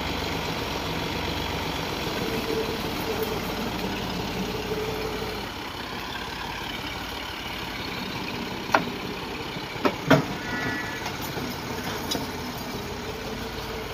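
Tractor diesel engine running steadily while its hydraulic tipping trolley is raised to dump a load. A few sharp knocks stand out past the middle.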